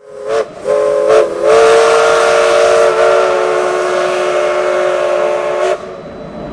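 Steam locomotive chime whistle, several notes sounding together as a chord: two short toots, then one long blast of about four seconds that cuts off near the end, leaving a fainter hiss.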